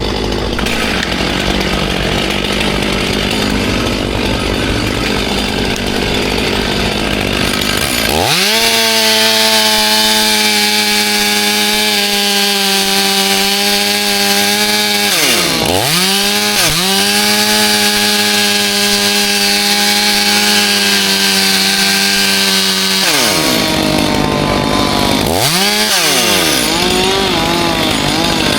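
Two-stroke chainsaw running hard. For the first several seconds it is a dense rasping noise. It then sings at a high, steady engine pitch that dips sharply and climbs back several times as the throttle is let off and squeezed again.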